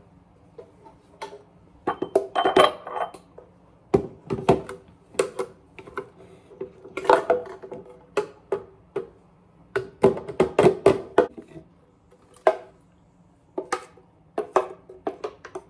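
A spoon scraping and knocking against the inside of a blender jar while homemade peanut butter is scooped out. The knocks and clatters come in clusters, some with a short ring.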